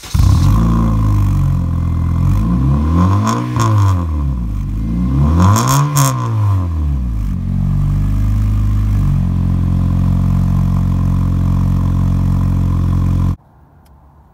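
8th-generation Honda Civic's engine heard at the exhaust, revved twice, the pitch climbing and falling each time, then running at a steady speed until it cuts off suddenly near the end.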